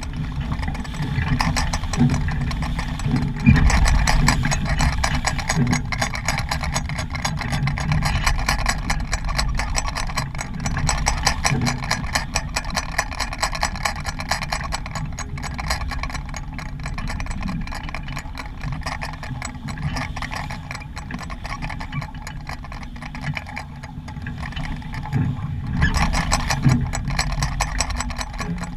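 Wind buffeting the microphone over the rush of water along the hull of a small sailboat under way, a steady rumble and hiss with no clear events.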